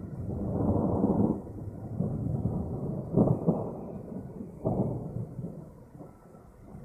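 Thunder rumbling, with two sharper cracks about three and four and a half seconds in, dying away near the end.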